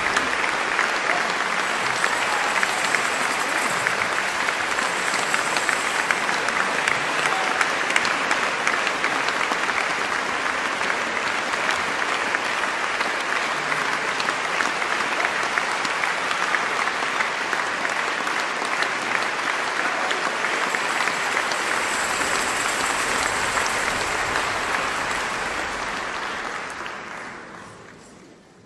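Large audience applauding steadily, a dense mass of hand claps, fading out over the last couple of seconds.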